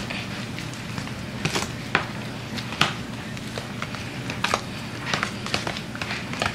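A metal spoon stirring seasoned cream cheese in a plastic container, with irregular clicks and taps of the spoon against the container.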